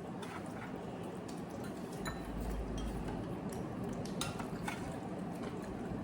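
Scattered light clinks and taps of eating utensils against bowls and dishes during a meal, with a brief low rumble about two seconds in.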